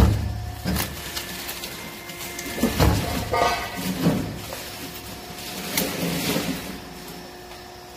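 Copper-winding extractor machine running with a steady hum, with several metal clanks and scrapes as the heavy steel stator is shifted on the machine and copper windings are pulled free.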